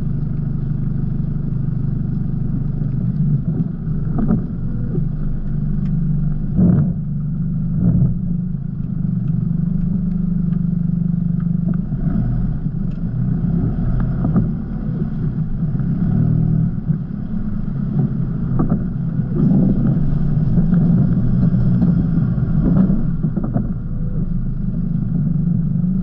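4WD engine running at low revs as the vehicle crawls over a rutted mud track, with a few thumps from the vehicle jolting over the ruts.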